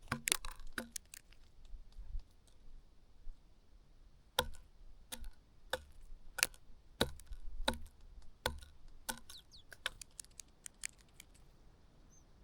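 A bird pecking at food, a run of sharp, irregular taps that thin out near the end.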